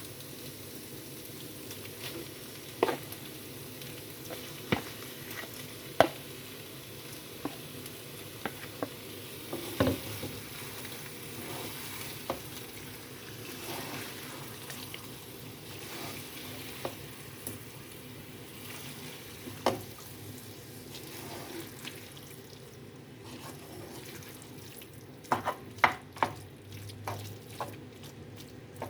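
Marinated chicken sizzling in a pan of fried onion and tomato masala as it is stirred in, with a steady frying hiss. A spoon scrapes and knocks against the pan every few seconds, with a quick run of knocks near the end.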